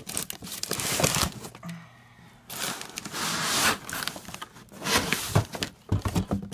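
Plastic wrapping crinkling and cardboard rustling and scraping as plastic-wrapped parts are tugged out of a box, in irregular bursts with a short lull about two seconds in.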